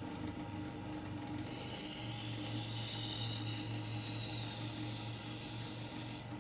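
Shear blade drawn across the spinning abrasive wheel of an Ez-Vex sharpening machine in one sharpening pass, a high grinding hiss that starts about a second and a half in and stops just before the end. Under it runs the steady hum of the machine's motor.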